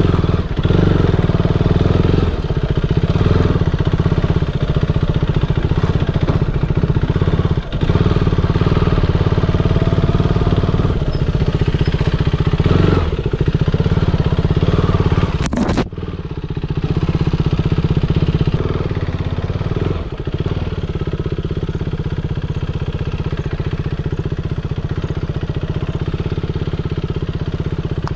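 An engine running steadily, with a sharp break about sixteen seconds in, after which it carries on a little quieter.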